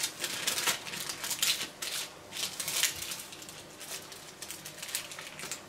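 Baking paper rustling and crinkling in quick, irregular crackles as bacon weaves are rolled up in it.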